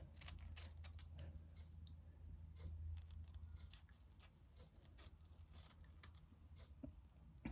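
Near silence: room hum with faint, scattered small clicks and rustles of hands handling hair and tools.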